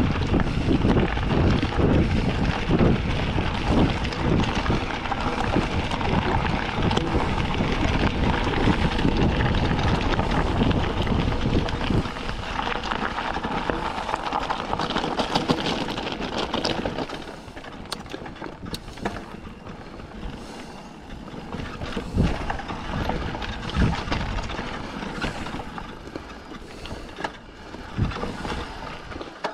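Mountain bike rolling fast over a gravel forest road, tyre rumble and frame rattle mixed with wind buffeting the microphone. About 17 seconds in it turns quieter, with scattered clicks and knocks as the bike slows onto dirt singletrack.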